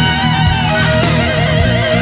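Background music: electric guitar playing a melody with vibrato over a steady beat.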